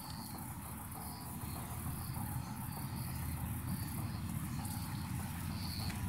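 Insects chirping outdoors: a short, high chirp repeating about every three-quarters of a second over a steady high hiss, with a low rumble underneath.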